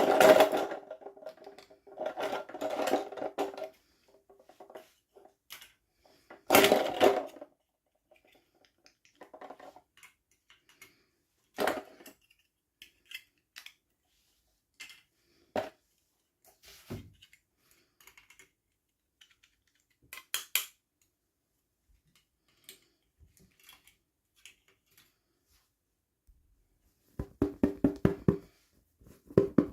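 Unboxing handling sounds: a few short bursts of rattling and scraping, with scattered light clicks and taps of small plastic pieces between them and a quick run of rattling near the end.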